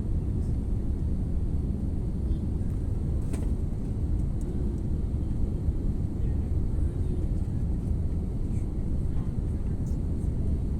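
Airliner cabin noise: the steady low rumble of jet engines and airflow heard from inside the passenger cabin.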